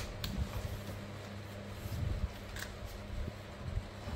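Handling noise: a sharp click right at the start, then faint rustles and a few light clicks over a steady low hum.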